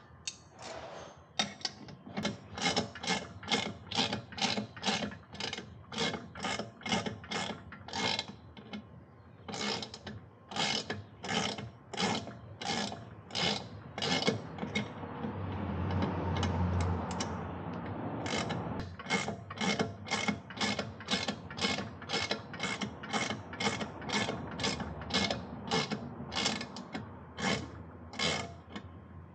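Hand ratchet wrench being worked in quick, even back-and-forth strokes, about two a second, each stroke a short burst of clicks. Midway, for a few seconds, a steadier noise with a low hum swells before the clicking strokes take over again.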